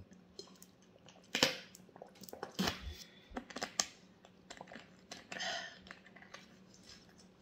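Drinking from a plastic water bottle: a handful of short swallowing and gulping sounds, with clicks and crinkles from the bottle between them.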